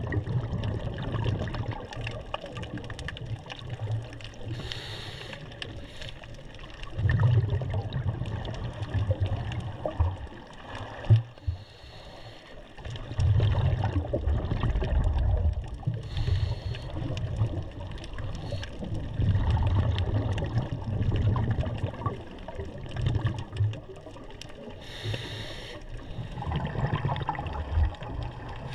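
Underwater sound of a scuba diver's regulator breathing: a short hiss on each breath in, then a low rumble of exhaled bubbles, repeating every five or six seconds.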